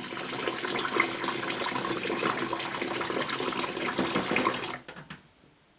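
Water running to fill a glass, steady for nearly five seconds and then cut off, followed by a few light clicks.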